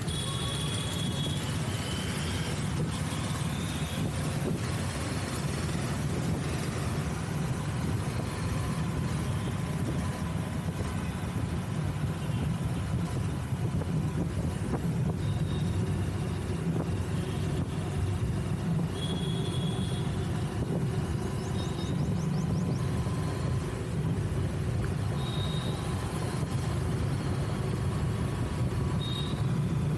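City traffic heard from a moving vehicle: a steady low rumble of engine and tyre noise, with short high horn beeps from surrounding traffic a few times, near the start, about two-thirds of the way through and twice near the end.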